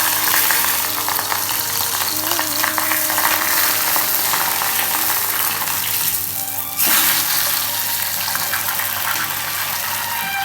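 Food sizzling and crackling in hot oil in a pan, a steady dense hiss that jumps louder about seven seconds in.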